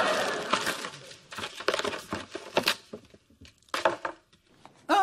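Shiny gift wrapping paper being torn and crinkled as a present is unwrapped. The rustle is densest in the first second, then breaks into scattered short crackles and rips that thin out.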